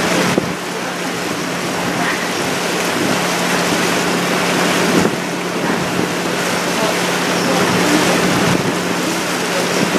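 Sightseeing boat under way: a steady engine hum under a loud, even rush of water against the hull.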